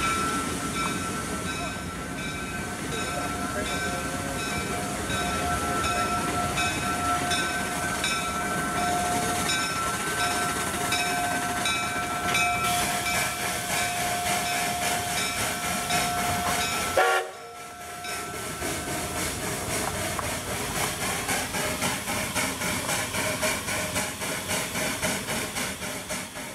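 Small replica Shay geared steam locomotive approaching, with a steam whistle-like note held steady for about seventeen seconds that cuts off suddenly with a jolt. Then its exhaust chuffs at about two beats a second as it draws near.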